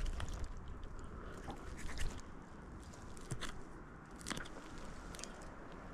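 A handful of scattered small clicks and crunches as a crappie is handled and unhooked, the jig worked out of its mouth by hand.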